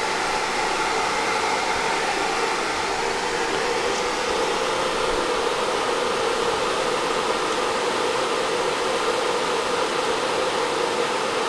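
A fan or blower running steadily: a constant whoosh with a hum in it and no change.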